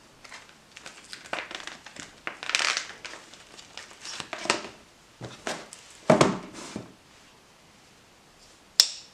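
Packaging being handled, with irregular rustling and crinkling for several seconds, then a lull and one sharp click near the end.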